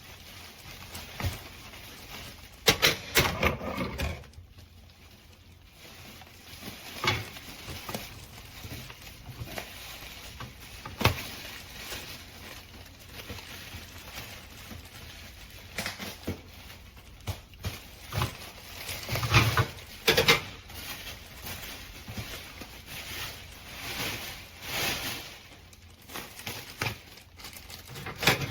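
A small dog's paws pattering and scuffing, irregular taps and scrabbles with louder bunches about three seconds in and again around twenty seconds in.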